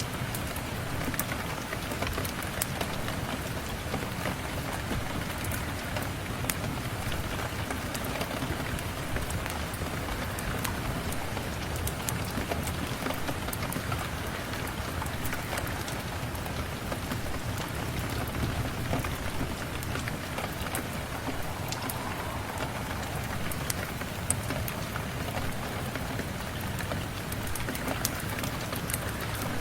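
Steady rain mixed with a fireplace's wood fire crackling, heard as a continuous hiss scattered with many small sharp ticks.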